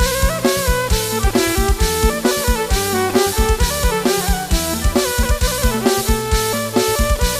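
Music with a steady drum-kit beat and melody, played loud through a PA system of stacked subwoofer cabinets and two top speakers that is being sound-tested.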